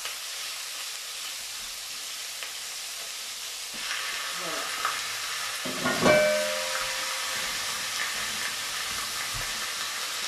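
Chicken pieces frying in olive oil in a frying pan, a steady sizzle. About six seconds in, a metallic clank rings briefly.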